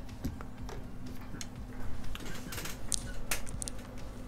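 Scattered light clicks and taps of small things being handled on an electronics repair bench, over a faint steady low hum.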